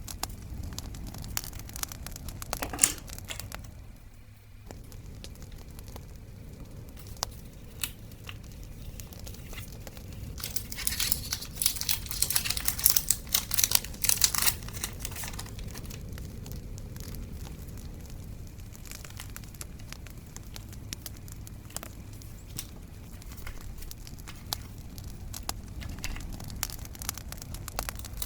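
Paper and sticker sheets being handled for scrapbooking: crinkling and tearing, with a louder stretch of crinkling in the middle. Under it runs a steady crackling bonfire.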